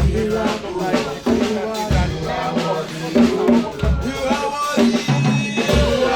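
Live church worship music: a drum kit keeps a steady beat, with a heavy bass drum hit about every two seconds, under a wavering melody.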